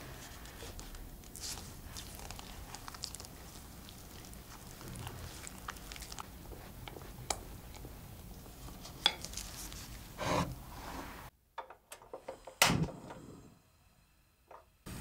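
A spatula stirring thick egg-and-flour batter in a glass bowl, wet squishing and scraping with small clicks against the glass. About eleven seconds in, the mixing stops and a gas burner is lit: a few light clicks, then one sharp loud click.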